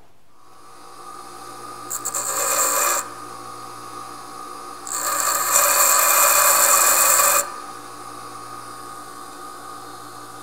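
Bench grinder running steadily while a high-speed steel lathe toolbit is pressed against its wheel to grind a chip breaker. There are two harsh grinding passes: a short one about two seconds in and a longer one from about five seconds to about seven and a half.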